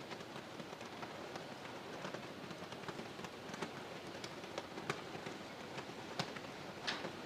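Strong winter wind blowing outdoors: a steady hiss with scattered sharp crackles and clicks throughout.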